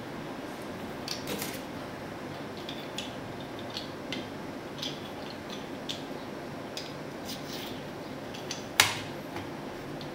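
Scattered small clicks and clinks of metal and plastic parts as a guided-rod knife sharpener is put together by hand, with one sharp knock near the end.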